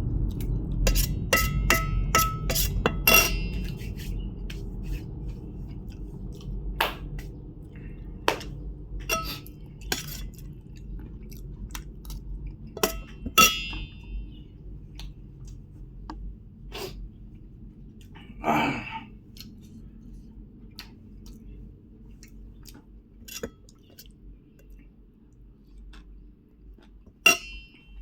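Close-up eating sounds: scattered sharp clinks against a plate, several with a short ring, bunched in the first few seconds and again twice later, with chewing between them.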